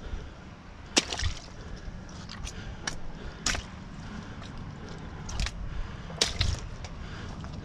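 Wet slaps and splats as squid are snatched by hand off a wet concrete deck and dropped into a cooler of ice, a few sharp hits standing out about one, three and a half and six seconds in.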